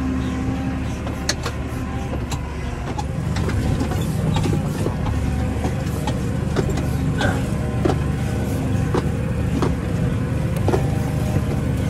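Tractor engine running steadily while it pulls a fertiliser spreader across a paddock, with irregular sharp clicks and rattles every second or so.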